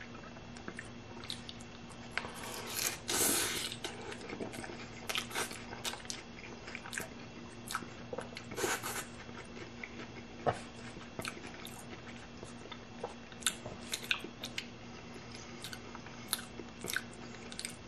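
Chewing a hard-shell ground-beef taco: crunches of the crisp corn shell and wet mouth sounds in scattered bursts with short pauses between them.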